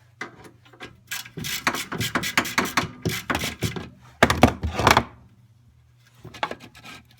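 Quick, irregular clicking and knocking of hands and tools working at a snowblower's oil drain plug and a plastic bottle catching the drained oil, in two busy runs with a few more knocks near the end.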